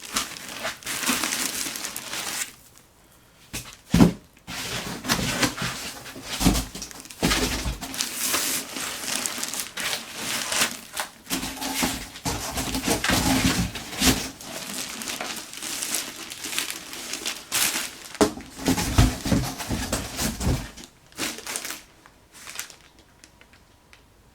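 Packaging being handled in an unboxing: irregular crinkling and rustling of plastic wrap and packing material, with a sharp knock about four seconds in. It goes quieter near the end.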